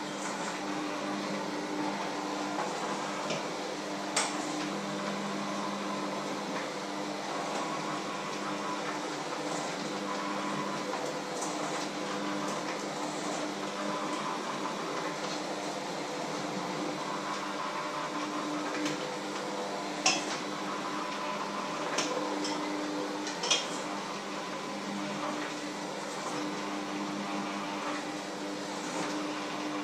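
Electric hand mixer running in a bowl, a steady motor hum, with a few sharp clinks against the bowl, the loudest about 20 seconds in.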